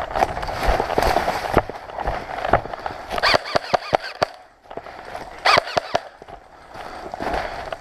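Airsoft gun firing a quick string of sharp shots about three seconds in, with a few more about five and a half seconds in. Before and after the shots there is rustling and footsteps from a player moving.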